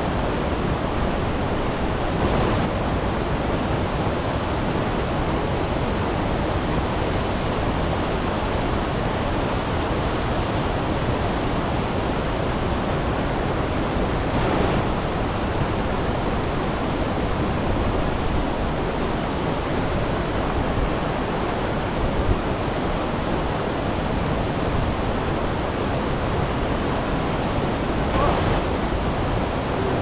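Waterfall pouring steadily: a dense, even rush of falling water close to the microphone.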